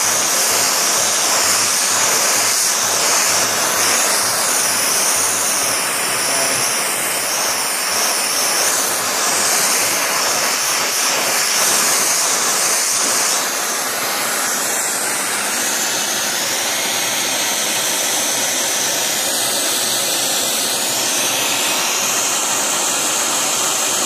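Oxyacetylene torch flame hissing steadily as it heats a 3/8-inch copper coupling to melt the preformed brazing ring inside the joint. It drops a little in level about halfway through.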